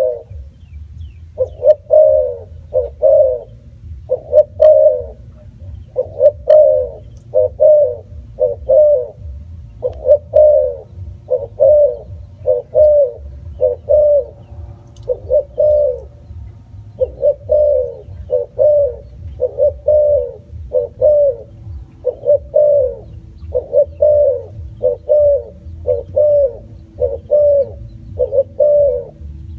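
Spotted dove cooing: short, low coos repeated in quick groups, about two a second, without a break, over a steady low rumble.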